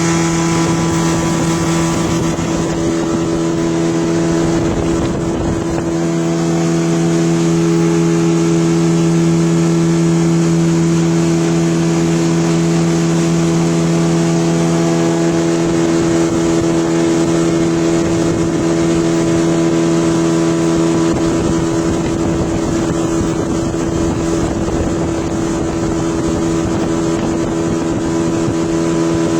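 Motor launch's engine running steadily under way, a constant droning hum heard from on board, with water and wind noise behind it.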